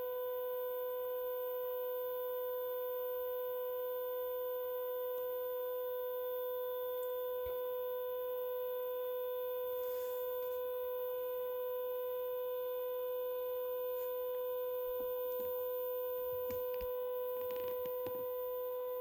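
Stepper motor of an OnStep GoTo belt drive slewing a 10-inch Dobsonian telescope, giving a steady whine held at one pitch with overtones, the motor's step rate at a constant slew speed. A few faint clicks come near the end.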